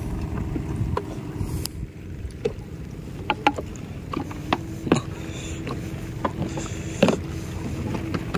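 A motorboat's engine running with a steady low hum, with scattered short knocks and clicks.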